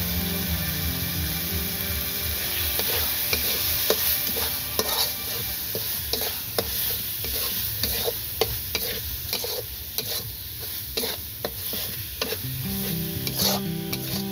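Duck meat and spices sizzling in a black iron wok while a steel spatula stirs it, scraping and clinking against the pan about once or twice a second from a few seconds in.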